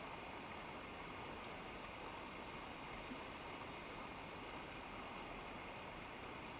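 Steady rushing of a mountain river's running water, an even hiss without a break.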